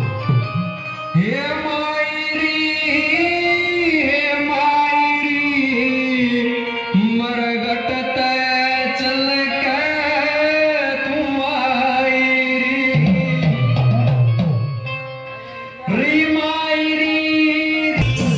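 Amplified devotional singing of a Mahakali jagran bhajan, long held and bending sung notes over a tabla and drum backing. The singing drops away briefly about fifteen seconds in, then a new line starts.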